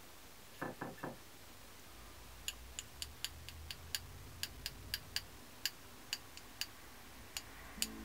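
A paintbrush tapped again and again against the handle of a second brush to spatter watercolour paint: sharp, light clicks, about two a second, starting a couple of seconds in. Before them come three brief soft sounds as the brush is worked in the ceramic palette.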